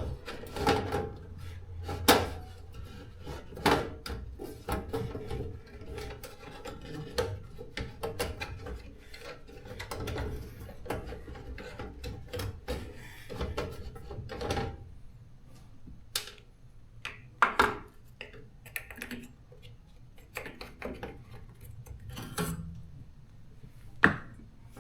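Hands handling tools and parts on a garage door opener: irregular clicks, knocks and scraping, with a few sharper knocks.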